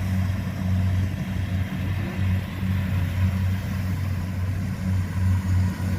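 Rice combine harvester's diesel engine running, a steady low hum that wavers slightly in level.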